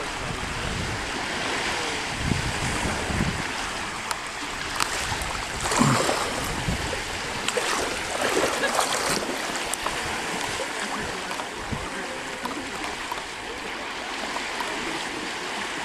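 Steady rush of flowing water, with a few brief louder sounds about six and eight seconds in.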